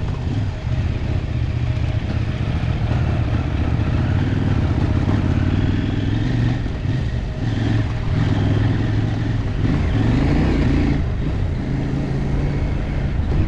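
Off-road motorcycle engine running as the bike rides a dirt track, the revs rising and falling with the throttle, with a steady rush of wind and road noise over it.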